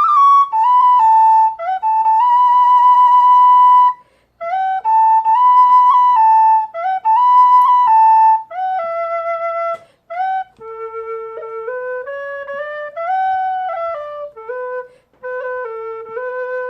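Bamboo alto Irish whistle in A playing a slow melody in phrases with short breath gaps between them. The early phrases are in the upper octave and loud; about two-thirds in, the tune drops to the low octave and is played more softly.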